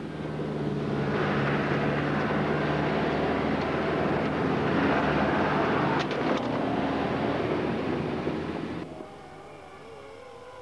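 Land Rover 200Tdi turbodiesel engine running hard under load, with a broad rushing noise over it. The sound drops away suddenly near the end, leaving a fainter wavering tone.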